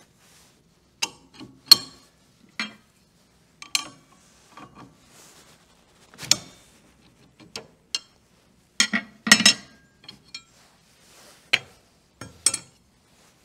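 Sharp metallic clinks and clanks of a SawStop table saw's two steel arbor wrenches being fitted onto the arbor nut and blade and worked against each other to loosen the nut, then set down on the saw; about ten separate strikes at uneven intervals.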